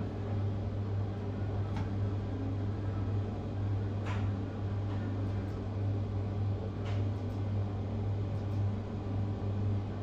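Steady low hum with background hiss of a room, broken by a few faint clicks about two, four and seven seconds in.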